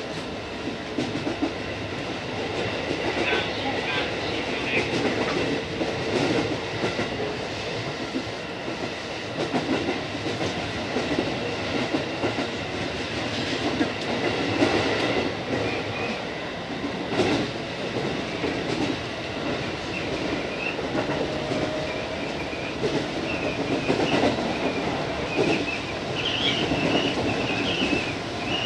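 JR East 205 series electric train running along the line, heard from inside the front car: steady rumble with wheels knocking over rail joints. A high, wavering squeal rises toward the end.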